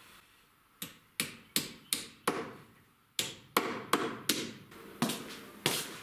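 Hammer striking bent nails straight against a metal block: sharp metallic taps, each ringing briefly, about three a second in two runs with a short pause between.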